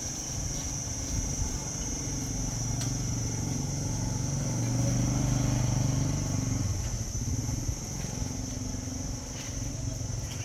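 A motor vehicle's engine running with a low rumble that grows louder about four seconds in and fades after about seven seconds, under a steady high-pitched hiss.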